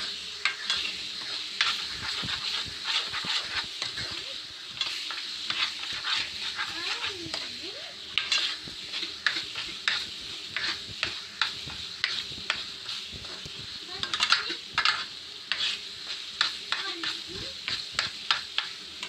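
Thick spiced masala paste sizzling in oil in a nonstick frying pan while a spatula stirs it, giving a steady sizzle with many short scraping strokes and knocks against the pan. The masala is being fried down with its spices.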